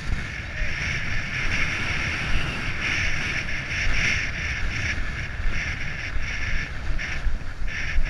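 Fishing reel buzzing in uneven surges as line is pulled off it, the surges breaking into quick pulses near the end, with wind rumbling on the microphone.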